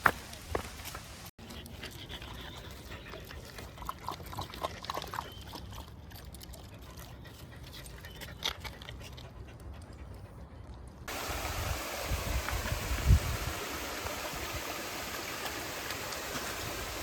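A dog at a forest stream: scattered small ticks and sounds of the dog moving at the water, then about 11 seconds in the steady rush of running stream water comes in abruptly and carries on.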